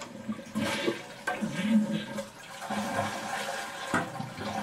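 Toilet cistern being flushed: the lever is pressed and water rushes and gurgles out of the tank, with a few sharp knocks along the way.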